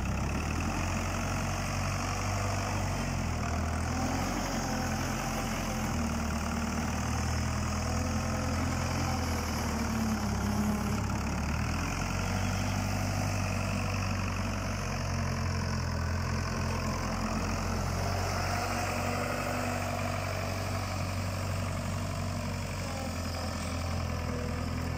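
Weatherill 8H loading shovel's 1960s Ford engine running steadily at idle.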